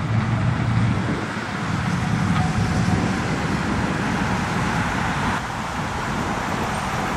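Steady road traffic: cars driving past on a city street, a bit louder in the first few seconds.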